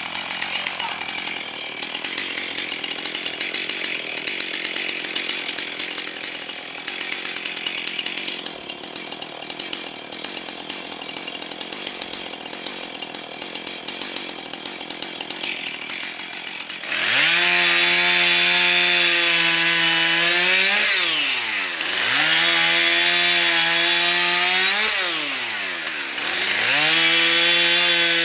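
Husqvarna two-stroke chainsaw with a 16-inch bar working through dead ash: a rough, noisy run, then about 17 seconds in it goes louder at high revs. Its pitch drops and climbs back twice as the throttle is let off and squeezed again.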